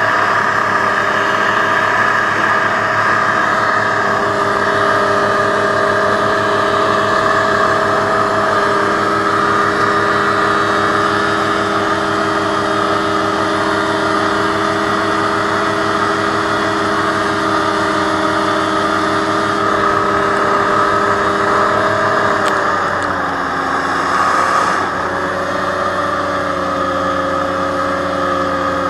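Aerocruiser SA-1100 hovercraft's engine and fan running steadily at high revs while under way. About two-thirds of the way through, the engine note dips and settles slightly lower as the craft slows a little.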